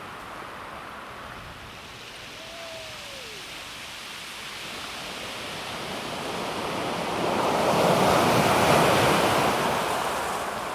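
Calm sea waves washing over a pebble beach: the surf hiss swells to a peak about eight seconds in as a wave comes in, then eases off. A faint, short falling tone sounds about three seconds in.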